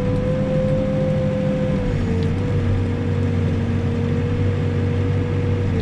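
Backhoe's diesel engine running steadily under load, with a high steady whine that dips briefly in pitch about two seconds in and again near the end.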